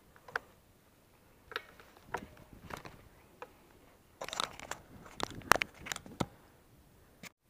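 Mountain bike rolling over a loose gravel and stone trail: tyres crunching on stones, with scattered sharp clicks and knocks from the bike rattling over the rough ground. The knocks come thickest about four to six seconds in.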